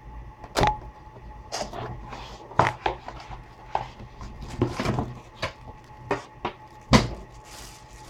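Cardboard keyboard box and its packaging being handled and opened: irregular knocks, taps and rustling, with sharper hits about half a second in, at about two and a half seconds and near the end.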